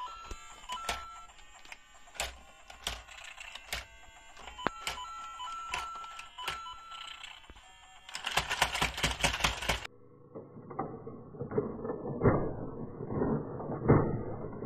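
LEGO Luigi interactive figure's built-in speaker playing electronic beeps and short game tones, with sharp plastic clicks. About eight seconds in comes a dense rattling burst, after which the sound turns duller, with repeated knocks and clacks.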